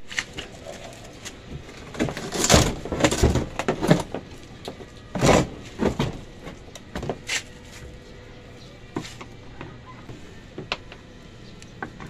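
A run of knocks and scraping rustles, as of hard objects being handled and moved, over a few seconds, loudest about halfway through. After that come a few scattered light clicks.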